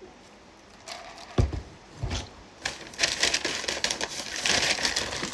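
Takeout packaging being handled: two dull knocks against a table, then a couple of seconds of steady crinkling and rustling.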